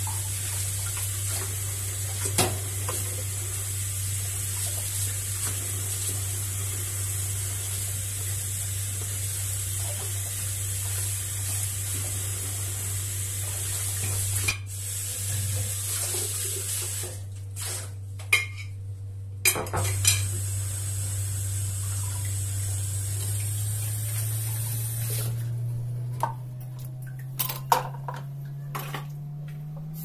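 Dishes being washed at a kitchen sink: tap water running with clinks of crockery and cutlery. The water cuts out briefly after the middle and stops a few seconds before the end. A low hum underneath rises in pitch near the end.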